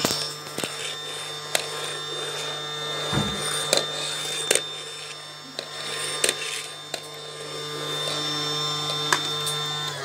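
Little Henry toy vacuum cleaner's small battery-powered motor running with a steady hum, the weak-suction motor of a C-battery toy. Short plastic clicks and knocks come as the toy is handled.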